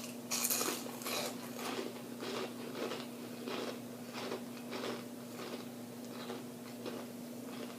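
Close-miked chewing of crunchy fried food: a loud crunchy bite about half a second in, then steady chewing at about three crunches a second.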